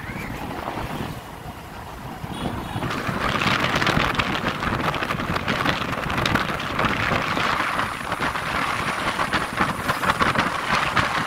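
Wind rushing over the microphone and road noise from riding in a moving vehicle, growing louder about three seconds in as it picks up speed.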